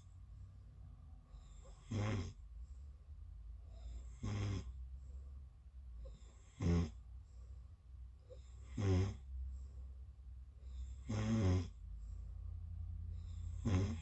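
A sleeping person snoring, with a short snore about every two and a half seconds and quieter breathing between them.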